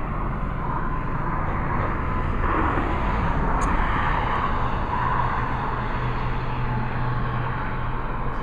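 Vehicle traffic running across the highway bridge: a steady rumble that swells a little about three seconds in, as if a vehicle is passing.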